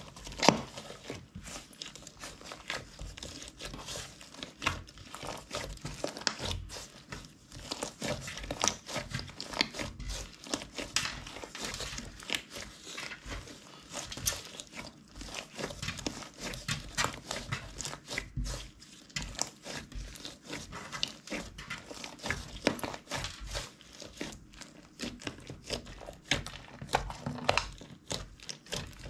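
Hands squishing and kneading slime, a dense run of irregular small clicks and crackly pops.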